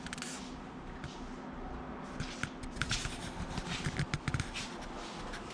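Light, irregular clicks and rustling, like handling noise, between smoke alarm tests. No alarm is sounding.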